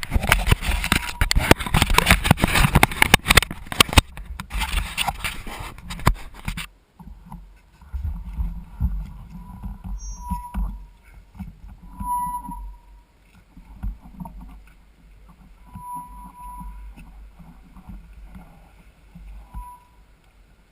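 Heavy wind buffeting and rattling on the microphone, as on a camera carried on a moving mountain bike. It stops abruptly about six or seven seconds in, leaving a quieter low rumble with a few short, faint high tones.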